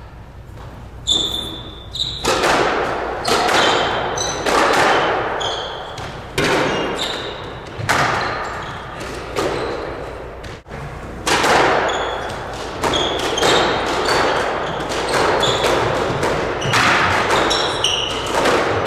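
Squash rallies: the rubber ball cracks off racquets and the court walls, each hit echoing in the enclosed court, with court shoes squeaking on the wooden floor. The hits begin about a second in, stop briefly about ten and a half seconds in, and then resume in a new rally.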